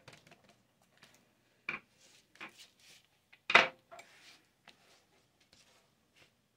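Paring knife scraping and tapping while seeds are cleaned out of a bell pepper on a plastic cutting mat, with a sharp clack about three and a half seconds in as the knife is set down on the counter, then faint light ticks and rustling as hands brush the loose seeds off the mat.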